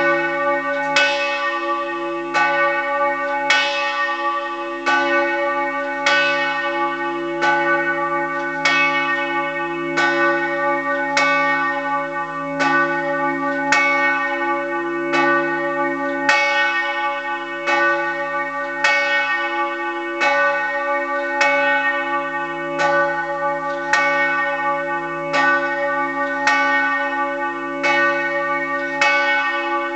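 The church bell Peter, 143 cm across, tuned to C-sharp (cis1) and cast by the Fischer brothers of Trnava in 1930, is swinging and ringing up close in its belfry. It strikes about once every 1.2 seconds, each stroke leaving a long ring over a steady low hum. It is the bell rung for funerals.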